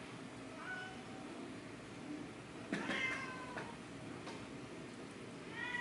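Young kittens mewing: a faint short mew about a second in, a louder, longer mew about three seconds in, and another mew near the end.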